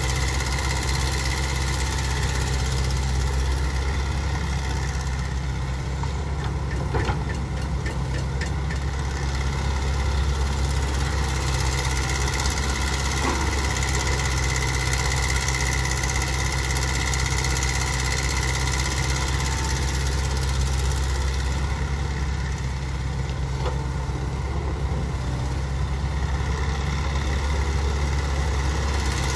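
Diesel engine of a Caterpillar tracked excavator running steadily as it digs soil, with a steady high whine over the engine. A few light knocks come about six to eight seconds in.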